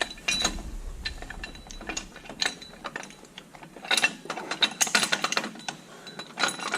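Steel hitch pin being worked through the quick hitch, spacer washer and lift arm: irregular metal clicks, clinks and scrapes, with a cluster of sharper clinks about four to five seconds in.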